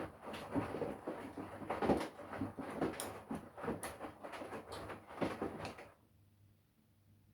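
Front-loading washing machine tumbling a wash load: water sloshing and wet laundry thudding in the turning drum. It stops abruptly about six seconds in, leaving a faint low hum.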